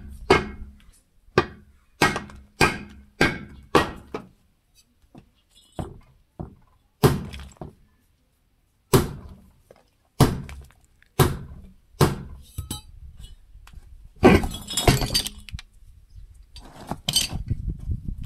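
Sharp metal-on-metal knocks from work on a tractor's front wheel hub. The knocks come about two a second for the first four seconds, then as single strikes every second or so, with a longer rattling clatter about fourteen seconds in.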